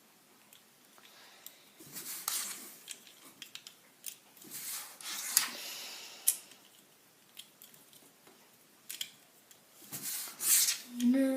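Plastic Lego pieces clicking and rustling as they are picked out and pressed onto a build, in several short bouts of sharp clicks and scraping.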